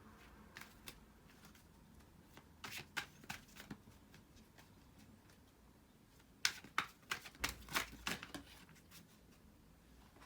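Tarot deck being shuffled by hand: scattered short clicks of cards slapping and sliding, with the busiest burst about two-thirds of the way through.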